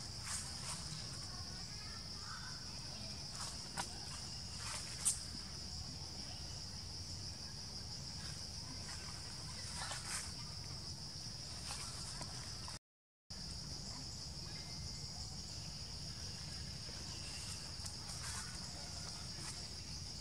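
Steady high-pitched drone of insects, over a low background rumble, with a few short clicks, the sharpest about five seconds in. The sound cuts out for about half a second roughly two-thirds of the way through.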